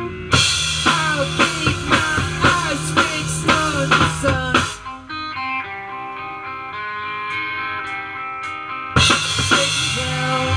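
Rock band playing an instrumental break on drum kit, electric guitars and bass guitar, with guitar notes that slide and bend over steady drum hits. About halfway through the drums drop out and the guitars ring on alone for about four seconds. Near the end the full band comes back in with a hard hit.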